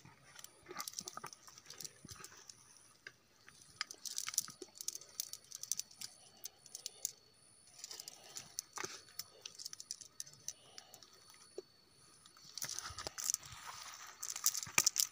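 Scattered crackling and rustling of dry grass, leaves and twigs being stepped on and handled in undergrowth, busier near the end.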